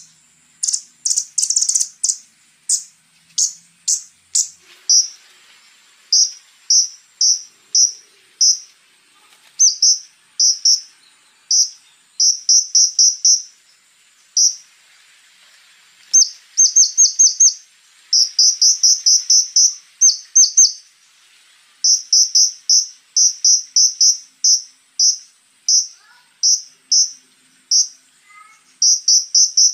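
Scarlet-backed flowerpecker (konin) calling: short, sharp, high notes repeated in quick runs of a few at a time, with brief pauses between runs. A faint steady high tone runs underneath.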